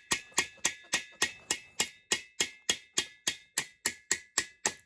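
Hammer tapping steadily on the stuck shifter fork shaft of a Kawasaki F6/F7 engine to drive it out, about three taps a second, each metal strike ringing briefly.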